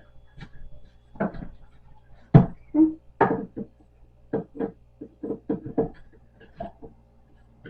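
Irregular knocks and clatter from a printer stand being taken apart by hand, with a heavier thump about two and a half seconds in.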